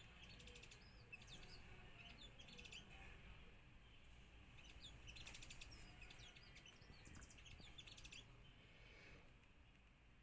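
Sunbird chirping: quick, high, faint chirps and short rapid trills, coming in a few separate bouts.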